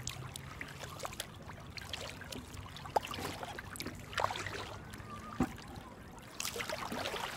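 Kayak paddle strokes: water splashing and trickling off the paddle blades, with a couple of light knocks and a louder rush of water near the end.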